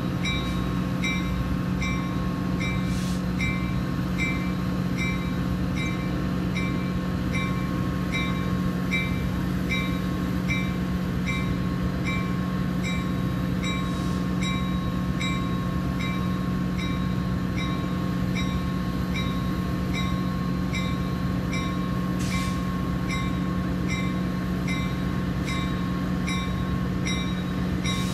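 Metra commuter train's diesel locomotive idling with a steady drone, while a bell dings about twice a second.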